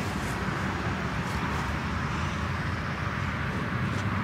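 Steady outdoor background noise: a low rumble with an even hiss and no distinct events.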